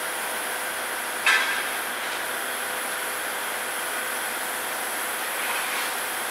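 Railway train noise: a steady hiss, with one sharp metallic clank about a second in.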